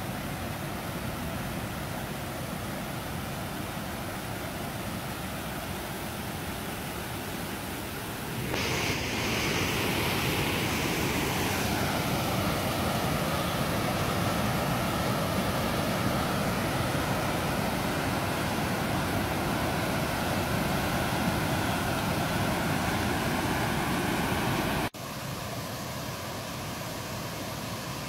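Rushing water of a man-made waterfall: the Bronx River pouring over a low stone dam in a steady churning roar. It gets louder about a third of the way in, then drops suddenly near the end to a fainter rush.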